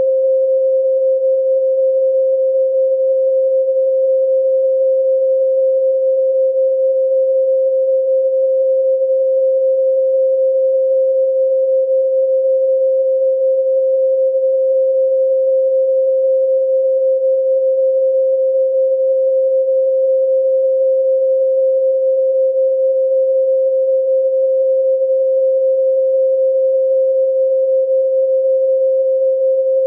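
A steady, unbroken pure sine tone at 528 Hz, a single pitch with no overtones, holding at one level.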